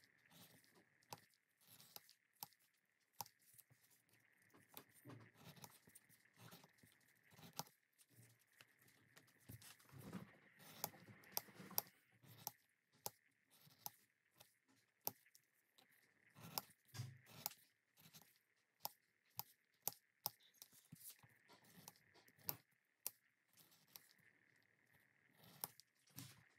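Faint hand work on leather: irregular sharp ticks and soft handling noises, about one or two a second, over a faint steady high whine.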